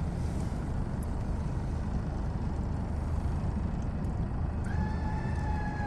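Boat motor running steadily at low speed, a low hum. About five seconds in, a faint thin held tone sounds for about a second.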